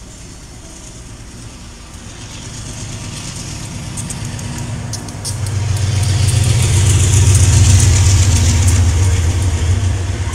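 Diesel freight train approaching and passing close. The locomotive's engine drone and the rumble of its wheels grow louder, with a few sharp clicks from the wheels on the rails about halfway through, and the sound is loudest as the train goes by near the end.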